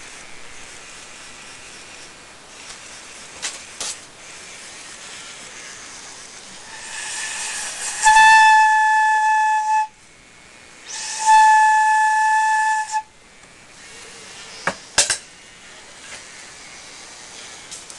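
PLEO robot dinosaur toy giving two breathy calls through its speaker, each a hiss that carries a steady hooting tone for a couple of seconds, about a second apart. A few sharp clicks come before and after the calls.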